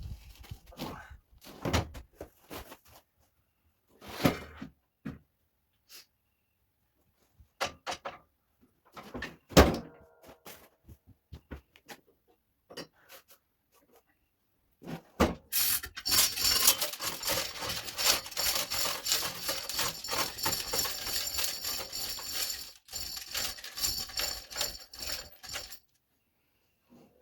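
Steel mower deck of a Snapper 360z zero-turn knocking and clunking as it is manoeuvred and fitted back under the mower, then about ten seconds of continuous rough scraping noise.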